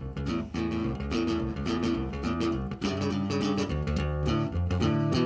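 Background music led by guitar, with plucked and strummed notes over a bass line in a steady rhythm.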